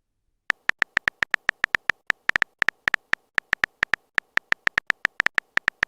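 Phone keyboard typing sound effect: a rapid, uneven run of short clicks, several a second.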